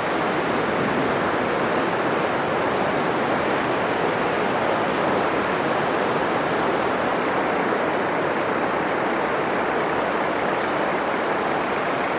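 Atlantic Ocean surf breaking on a sandy beach: a steady, continuous wash of waves with no single crash standing out.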